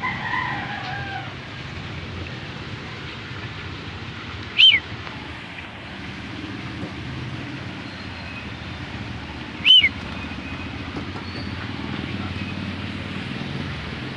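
Steady low background rumble, broken twice, about five seconds apart, by a short, sharp high chirp.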